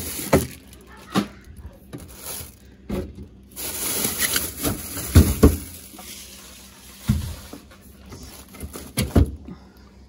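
Plastic produce bags rustling and crinkling as vegetables are handled in a refrigerator crisper, with scattered knocks and bumps, the loudest a pair about five seconds in and another near the end.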